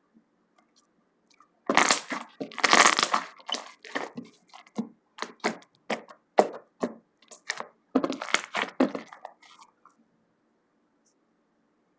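Slime squeezed and pressed by hands, giving crackling pops and snaps as air pockets burst: two dense bursts of crackling with separate sharp pops between them, then it stops about two seconds before the end.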